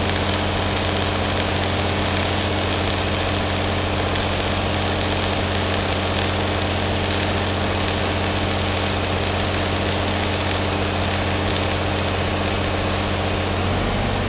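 Arc welding on steel: a welding machine's steady low hum under the even hiss and crackle of the arc, held without a break.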